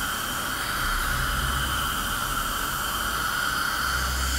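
Steady, even hiss of a dental surgical suction unit running.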